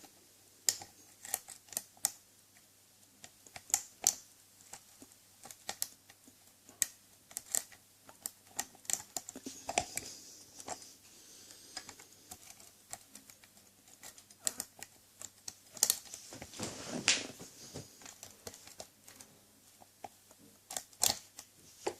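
Small, irregular metallic clicks and light scrapes of a lock pick working the pin stack of a Yale door-knob cylinder, held under very light tension with a tension wrench at the bottom of the keyway.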